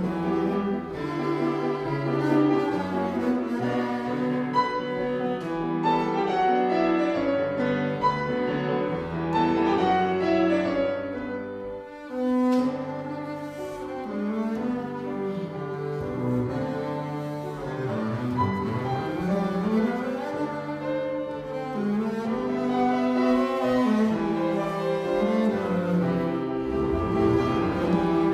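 Double bass played with the bow, accompanied by a grand piano, in a classical piece for bass and piano. The music dips briefly around twelve seconds in, then carries on.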